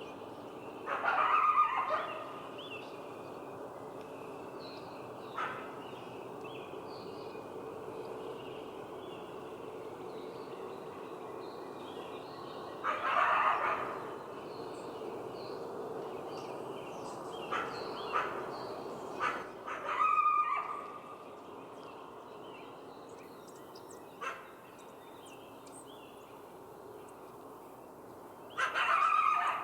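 Coyote barking: separate loud barks and short bark-howls come every few seconds, with a few quieter single yips between them, over a steady background hiss.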